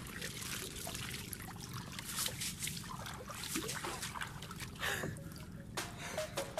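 Water trickling and splashing off a fine-mesh net as it is hauled up out of the water by hand, in irregular drips and splashes. Music comes in near the end.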